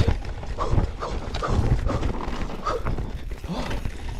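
Enduro mountain bike riding fast down a dirt and leaf trail: continuous rumble of tyres on the ground with wind buffeting the microphone, and the bike's chain and frame rattling over bumps. A few short voice-like yelps cut through it.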